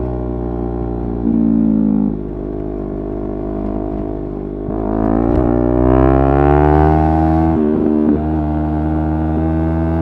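Yamaha R3's 321 cc parallel-twin engine pulling the bike along. About five seconds in its pitch climbs steadily for two to three seconds as it revs up in gear, then drops back sharply and holds a steady note.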